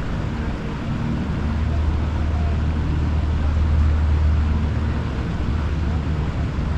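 Steady low engine hum, swelling slightly about four seconds in and easing off again.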